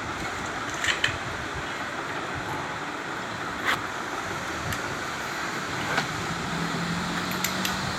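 Steady background road-traffic noise, with a few short sharp clicks: two about a second in, then one near the middle and one later. A faint low hum comes in near the end.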